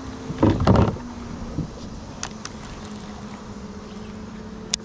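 A cast with a baitcasting rod and reel, a short loud whoosh about half a second in, then the reel cranked in with a steady low whir and a sharp click near the end.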